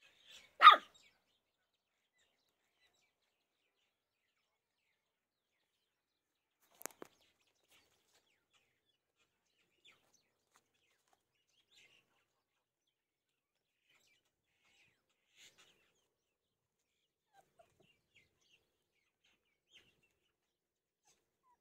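A single short, loud animal call about a second in, then near silence broken by a faint double click at about seven seconds and a few faint, scattered chirps.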